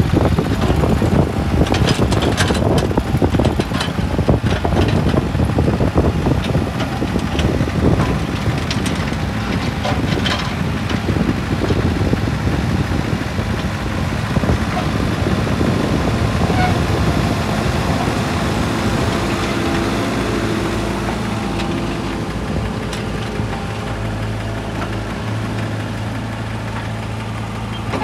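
Mini excavator's diesel engine working under hydraulic load, with knocks and clatter as concrete blocks drop from its bucket into a mini dumper's skip. In the second half the clatter stops and a diesel engine runs on steadily with a low hum.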